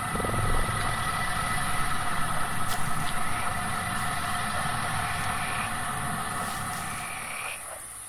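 A steady, dark ambient drone: several held high tones over a low rumble, with a few faint ticks, fading down near the end.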